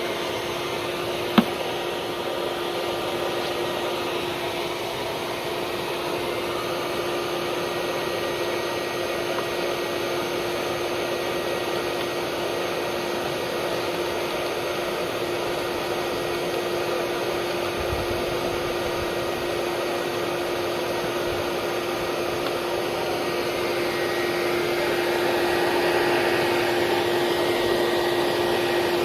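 Vacuum motor running steadily: a constant rushing drone with a steady hum, growing a little louder near the end. A single sharp click comes about a second and a half in.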